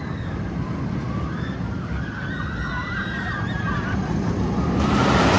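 A Vekoma Boomerang roller coaster train running along its steel track with a steady rumble, and riders' screams rising and falling above it. Near the end the train rushes past closer and the noise swells.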